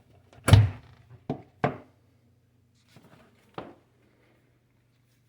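Knocks and clunks of an electric range's heavy power cord and plug being handled and pulled from the wall outlet: one loud thud about half a second in, two sharper knocks a second later and a lighter one near the end.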